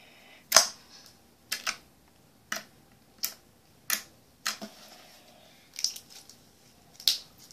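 Glossy slime clicking and popping as fingers poke and squeeze it: a string of short, sharp snaps, about one a second at uneven intervals.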